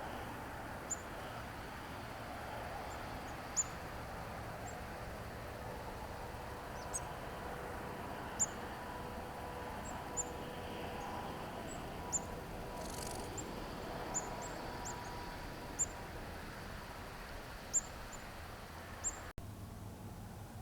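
A small bird giving short, very high, thin call notes, about ten of them spaced a second or two apart, over a steady background hiss and faint hum.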